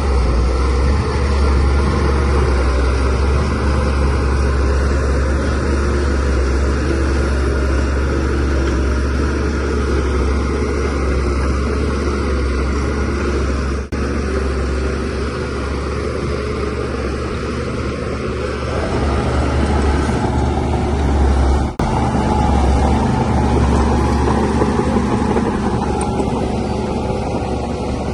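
DH17-C3 bulldozer's diesel engine running steadily under load, with a deep rumble and constant mechanical noise from the machine at work. The sound drops out for an instant twice, about halfway and about three-quarters of the way through.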